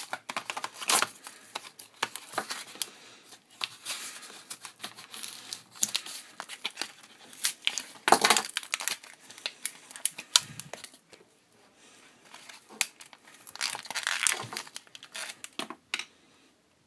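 Cardboard-and-plastic blister packaging being cut and torn open by hand with a folding knife: irregular crinkling, tearing and crackling of card and plastic, loudest about halfway through and again near the end, with a quieter spell in between.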